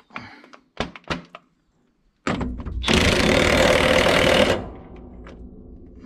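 DeWalt cordless impact wrench hammering for about two seconds on a cutter-hub (turtle head) nut of a John Deere 1360 disc mower conditioner, after a couple of sharp metal knocks. It then drops to a quieter steady hum.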